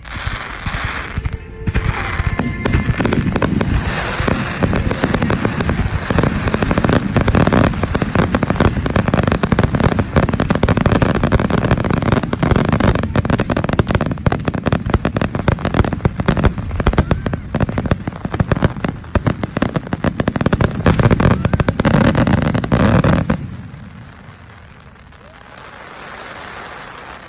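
Fireworks display going off in a dense, continuous barrage of bangs and crackles that stops abruptly near the end.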